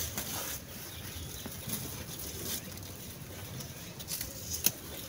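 Pumpkin leaves and stalks rustling as they are picked and handled by hand, with a few sharp snaps and clicks, the loudest near the end.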